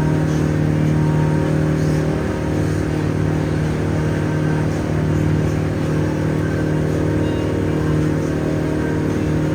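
Boat engine running at a steady cruising speed: a constant low hum with a steady pitch.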